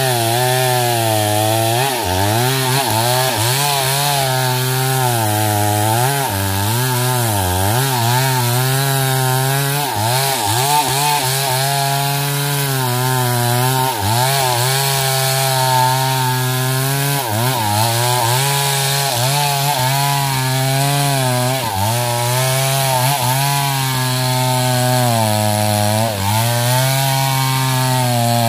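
Stihl MS 382 two-stroke chainsaw running at high revs while cutting wood, its pitch sagging under load in the cut and picking back up again and again.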